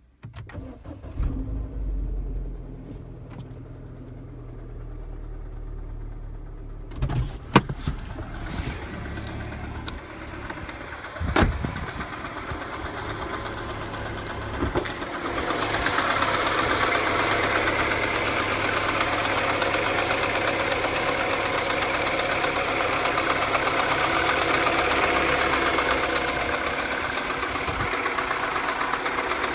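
2007 Mini Cooper (non-S) N12 1.6-litre four-cylinder petrol engine cold-started and then idling with a ticking at idle, which a replaced belt tensioner has not cured. A few sharp knocks come about a quarter and a third of the way in, and the engine sound grows louder about halfway through.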